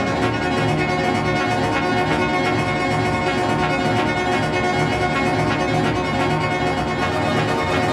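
Electronic music playing at steady volume, with sustained string-like tones held over a moving low end.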